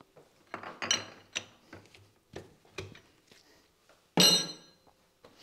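Steel lathe quick-change tool holders clinking and knocking against each other and their rack as one is lifted off, a string of light knocks followed by one loud metal clank that rings briefly about four seconds in.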